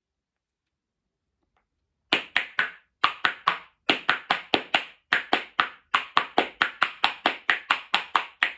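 A pair of wooden spoons played as a percussion instrument, clacked together back to back in a quick rhythm starting about two seconds in, about four or five clacks a second in short runs with brief breaks between them.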